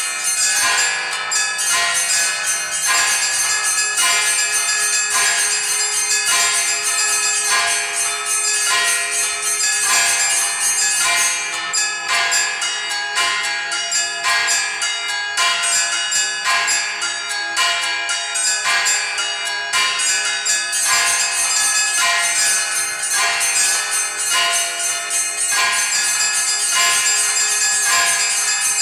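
Orthodox church bells ringing a continuous, fast Easter peal (trezvon), struck by an automatic electronic bell-ringing system. Several bells of different pitches are struck in quick succession, and their ringing overlaps without a break.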